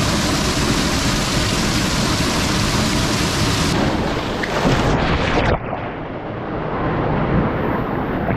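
Water rushing and splashing close to the microphone, a loud steady roar like a small waterfall pouring down. About five seconds in it changes abruptly to a duller, quieter water sound.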